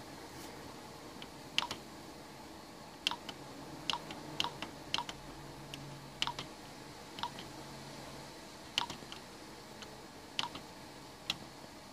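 Control-panel buttons on an Epson WF-2750 printer being pressed to step through its menus: over a dozen short plastic clicks at an uneven pace, some in quick pairs.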